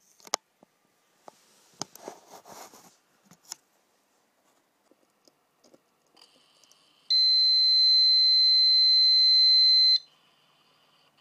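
A few handling clicks and rustles, then one loud, steady, high-pitched electronic beep lasting about three seconds from the Prosports Premium oil temperature gauge as it powers up, cutting off sharply. A faint electrical whine runs underneath.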